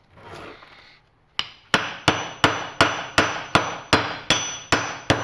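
Pneumatic air hammer driving a chisel against the welded steel core of a core-and-coil transformer: about eleven sharp metallic strikes, roughly three a second, starting about a second and a half in, each with a short ring from the steel. The hammer is breaking the welds that hold the core together.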